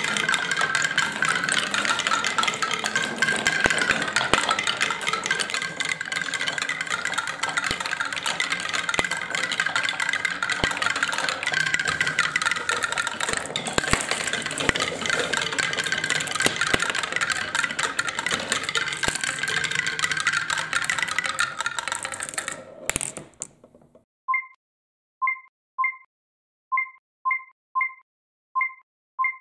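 Glass marbles rolling and clattering along wooden marble-run tracks and a spiral, a steady rattle full of small clicks that stops abruptly about 23 seconds in. Then a run of short electronic beeps, about one a second and coming quicker.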